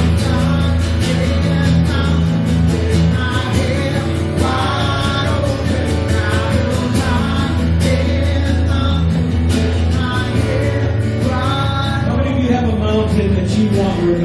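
Worship band music: strummed guitar over sustained bass notes, with a sung melody.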